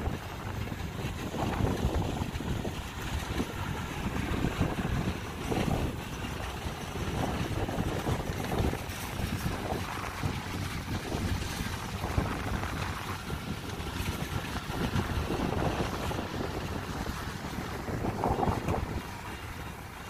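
Kubota DC70 combine harvester's diesel engine running steadily as it cuts lodged rice, with wind buffeting the microphone in gusts.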